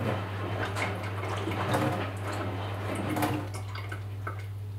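Sterilised water being poured out of a container, a splashing trickle that stops about three and a half seconds in.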